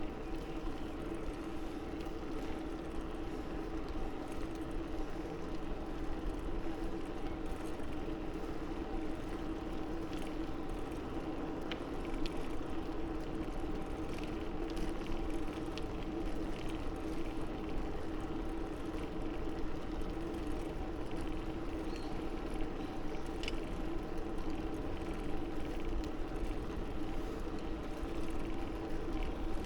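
Continuous riding noise from a bicycle on a paved path: tyre rumble and wind, with a steady hum underneath and a few faint clicks.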